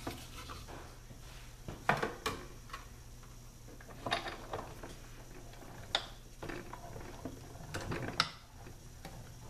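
Sizzix Big Shot die-cutting machine being hand-cranked, a platform sandwich with steel dies passing through its rollers: scattered clicks and clunks a second or two apart over a faint low hum.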